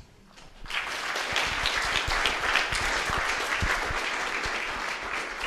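Audience applause: many people clapping, starting just under a second in after a brief quiet and continuing steadily.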